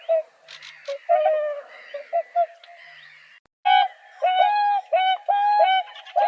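Swans calling: a run of short honking calls, broken off by a cut about three and a half seconds in, then a series of longer, level honks about two a second.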